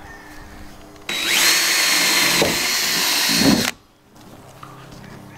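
Cordless drill boring a pilot hole through a roof fan's plastic mounting flange into the bus roof: about a second in the motor spins up to a steady high whine, runs for about two and a half seconds and stops abruptly.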